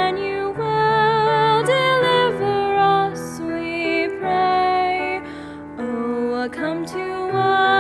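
A female soloist singing a slow Advent hymn with vibrato over sustained instrumental accompaniment.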